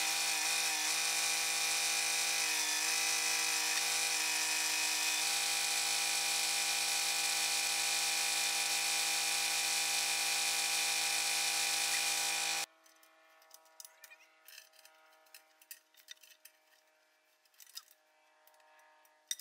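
Kubota compact tractor's diesel engine running steadily, with a few slight dips in pitch in the first five seconds. It cuts off abruptly about two-thirds of the way through, leaving faint clicks and scrapes.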